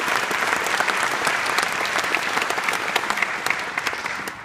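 Auditorium audience applauding, many hands clapping at once, dying away near the end.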